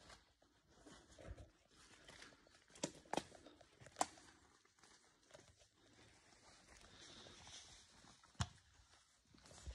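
Quiet footsteps and rustling on a forest floor of dry needles, leaves and twigs, with four sharp clicks, the loudest about four seconds in.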